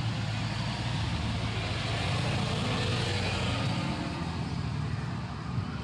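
Steady low rumble of a motor vehicle's engine running, with a hiss that swells about two to three seconds in and then eases.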